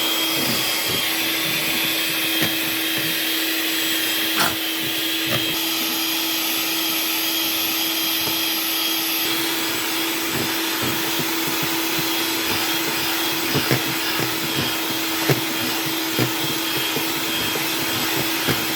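Electric mixer running steadily as it beats cheesecake filling in a bowl, a constant motor whine with a few short knocks.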